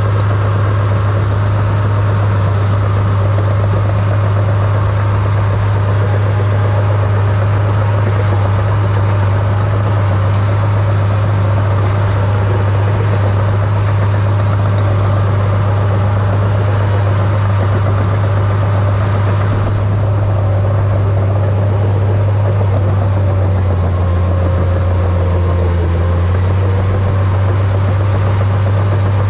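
Crawler dozer's diesel engine running with a steady low drone as the machine pushes snow.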